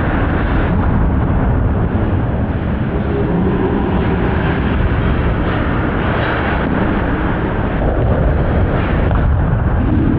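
Bowling alley noise: a steady heavy rumble of balls rolling down the lanes, mixed with pin crashes.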